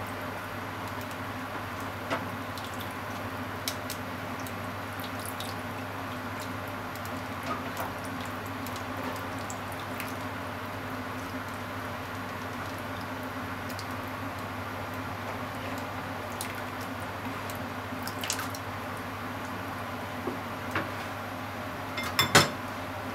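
Creamy sauce with onion and bacon cooking in a frying pan: scattered small wet pops and drips over a steady low hum. A sharp clatter near the end is the loudest sound.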